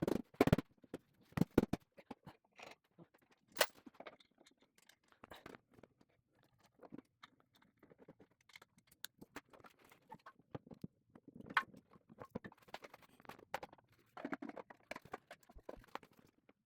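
Irregular handling sounds of hands working on an electric pallet jack: scattered clicks, knocks and light rattles, a little busier near the start and again near the end.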